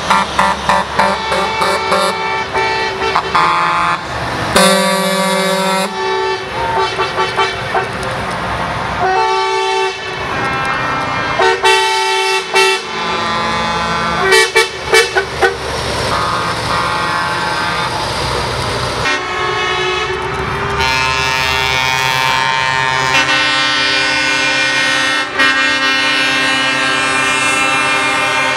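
Truck air horns sounding as show trucks drive past in a parade convoy: many short toots and blasts of several pitches, a long loud blast about five seconds in, and long held chords near the end, over the steady noise of truck engines.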